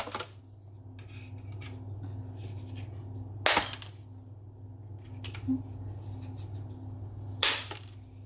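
Lasagna sheets being cut into pieces: two sharp cracks about four seconds apart, the first about three and a half seconds in and the second near the end, with a smaller click between them.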